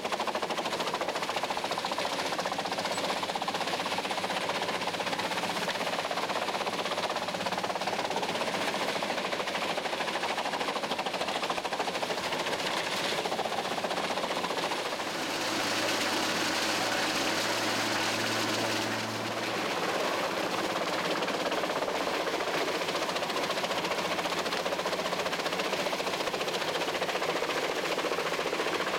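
Gandini Chipper Energy drum wood chipper running under load as branches and small trunks are fed into its drum, giving a loud, continuous, dense chipping noise. For a few seconds around the middle the sound turns steadier, with a low hum and more hiss.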